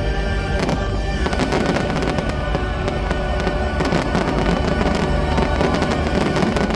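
Aerial fireworks banging and crackling in quick succession over the loud music of a pyromusical show.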